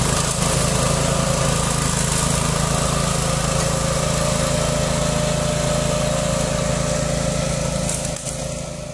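DAKR FD3 ECO walk-behind tractor's Loncin 352 cc four-stroke single-cylinder engine running steadily under load, driving its M121 twin-rotor mulcher through weeds, with a steady whine over the engine's beat. The sound fades out near the end.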